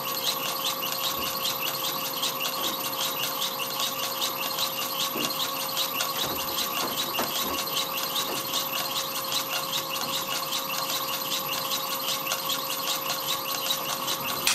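Tormach PCNC1100 mill spindle and its belt drive running at the lowest manual speed, a steady whine with a rapid, even pulsing, on the old rust-marked spindle and bearings. It cuts off abruptly at the very end.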